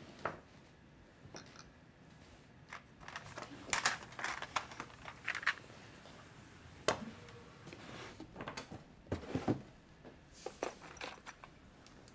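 Irregular crunching and small clicks of a cat chewing dry food from a bowl.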